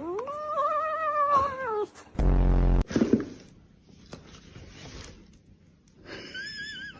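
Domestic cat giving one long meow, about two seconds, that rises and then falls in pitch. A loud half-second buzz follows, and a shorter, higher wavering cry comes near the end.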